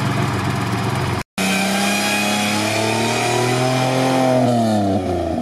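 Toyota Land Cruiser 80 engine idling steadily, then, after a sudden break in the sound about a second in, revving under load as the mud-tyred truck drives through the bog. The engine pitch climbs slowly, drops away near the end and starts to rise again.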